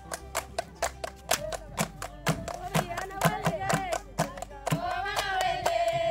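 A group of women singing a local song in unison to steady rhythmic hand clapping. The voices come in over the clapping about two seconds in and grow stronger, ending on a long held note.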